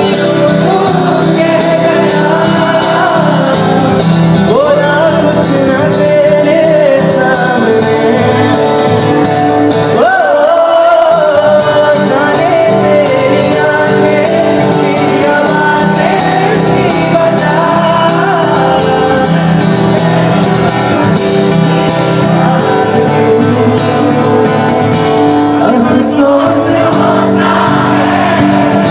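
A song with a singing voice over guitar and other instruments.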